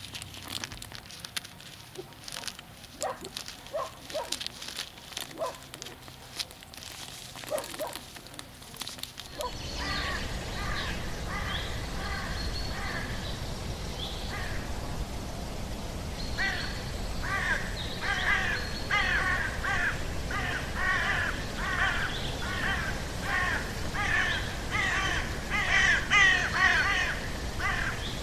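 Light dry crackling and scattered clicks for the first nine seconds or so, then a flock of crows cawing, harsh repeated calls that come thicker and louder toward the end.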